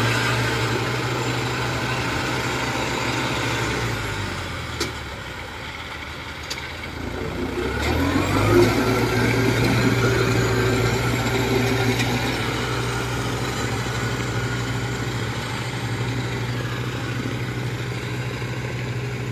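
Engine of a loaded tracked crawler cart hauling sacks of rice, running steadily, easing off about four seconds in, then revving up with a rising pitch around eight seconds and running on steadily under load.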